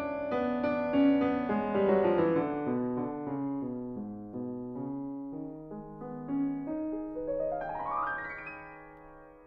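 Background piano music: a line of notes stepping downward over the first few seconds, then a quick rising run about seven seconds in, fading away near the end.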